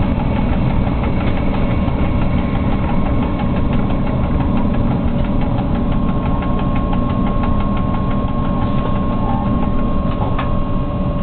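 Cab noise of a freight locomotive rolling slowly: a steady loud rumble and rattle, with a faint steady whine over it.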